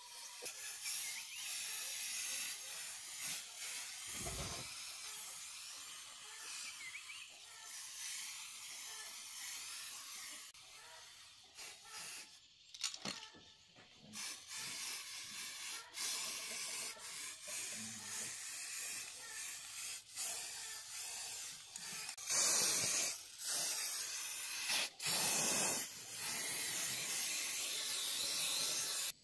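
Aerosol spray-paint can hissing in repeated bursts as green paint is sprayed onto a small diesel engine's casing, the longest and loudest bursts near the end.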